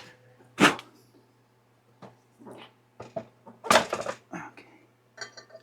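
Metal parts of a motorcycle's rear wheel assembly being handled, clanking and knocking: one sharp clank just under a second in and a cluster of knocks around four seconds.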